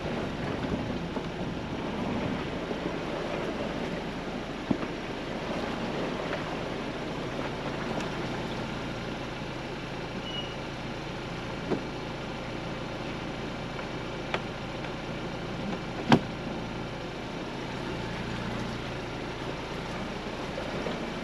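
Ford Bronco crawling slowly along a rutted off-road trail: steady low engine and drivetrain rumble with road noise. Four sharp knocks break through, the loudest about three-quarters of the way in.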